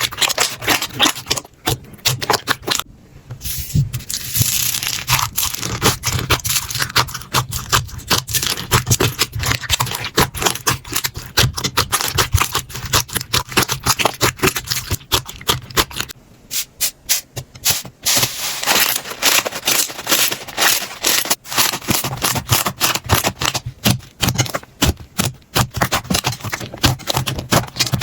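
Slime being squeezed, poked and stretched by hand: a dense run of small sticky clicks, pops and crackles, with short lulls about 3 and 16 seconds in.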